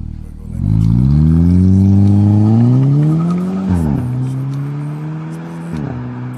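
Volkswagen Scirocco 2.0 TSI's turbocharged four-cylinder engine, breathing through a homemade exhaust, revving up hard. Its pitch climbs and holds high, then falls sharply about four seconds in and again near the end, as in upshifts while accelerating.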